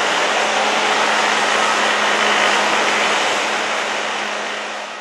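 Boeing 737-900ER's twin CFM56-7B turbofans at takeoff thrust, a steady rushing jet noise as the airliner lifts off and climbs away, fading out near the end.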